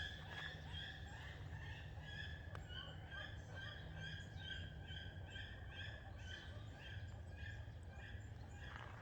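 An animal, most likely a bird, calling in a series of short, high, pitched notes, about two or three a second through the middle, over a low steady hum.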